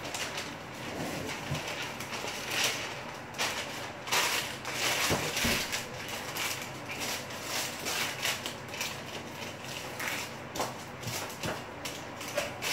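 Rustling and crinkling of a thin white wrapper handled by hand, irregular and on and off, with light clicks and taps.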